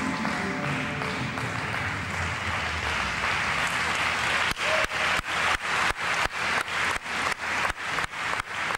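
Audience applause rising as the routine's music fades out in the first second; from about halfway the clapping takes on a regular beat, about three pulses a second.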